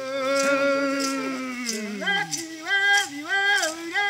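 Male chanting from Javaé masked Aruanã dancers: one long held note that sags and falls away about two seconds in, then a run of short notes that each rise and drop again.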